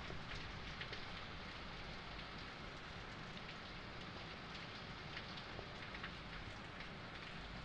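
Steady rain falling: an even hiss with scattered individual drops ticking.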